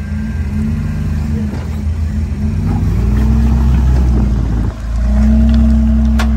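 Jeep Wrangler JK's engine revving under load as it crawls over a rock ledge, the revs rising and falling. There is a brief drop about three-quarters of the way through, then it runs louder and steadier to the end.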